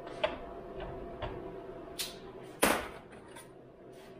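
A few short knocks and clatters of tools and chainsaw parts being handled on a workbench, the loudest a little past halfway through, over a steady hum.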